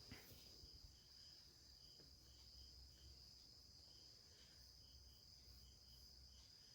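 Near silence with faint crickets chirping: short chirps, often in pairs, repeating about every second over a steady faint high-pitched whine.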